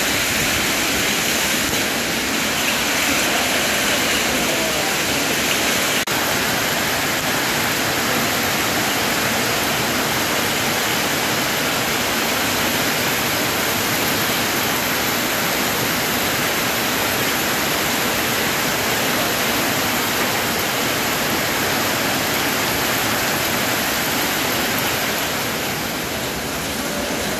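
Heavy rain mixed with hail pelting a tiled floor and a concrete yard: a loud, steady, dense hiss that does not let up.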